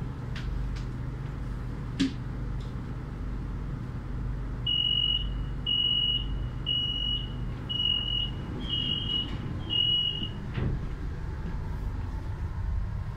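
Metro train's door-closing warning: six high beeps about a second apart, then the doors shut with a thump, over the steady low hum of the train.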